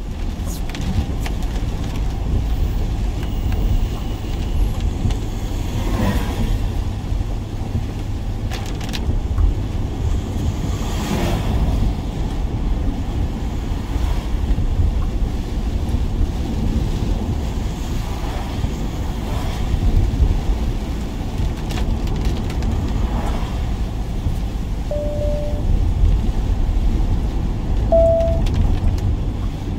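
Steady low rumble of a van's engine and road noise, heard from inside the cab, with a few brief knocks.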